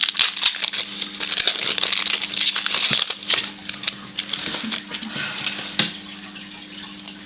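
2006 Flair Showcase baseball cards and their packs being handled close to the microphone: crackly rustling with many light clicks, louder for the first three seconds or so, then softer.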